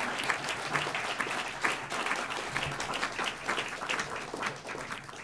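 Audience applauding, dense and steady clapping that starts to die away near the end.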